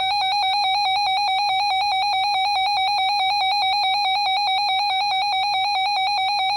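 Emergency Alert System attention signal: a loud, steady, harsh electronic alarm tone with a fast flutter, marking the start of a severe thunderstorm warning broadcast.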